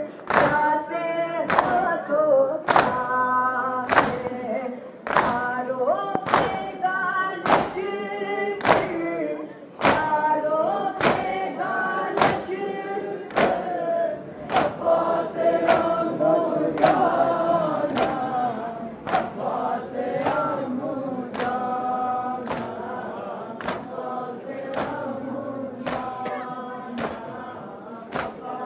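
A crowd of male mourners chanting a noha in unison, kept in time by rhythmic matam, hands striking chests together about one and a half times a second. The strikes grow softer near the end.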